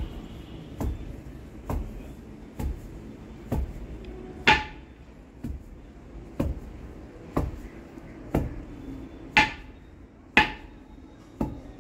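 Sesame seeds being pounded by hand with a pestle in a mortar: steady strokes, about one a second, a few of them ringing with a clear metallic note.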